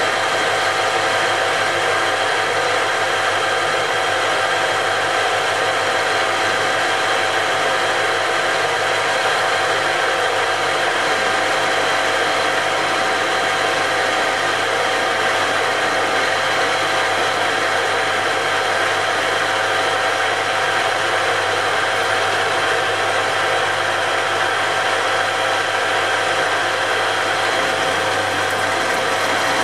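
Metal lathe running steadily with a gear whine of several steady tones, its tool taking a light turning cut along the outside of a metal arbour to skim off the mill scale.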